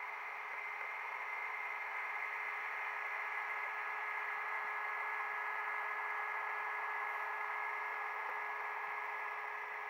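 H0 model train running along the track, heard from a camera riding on it: a steady whir and hiss with a few faint held tones, swelling slightly midway.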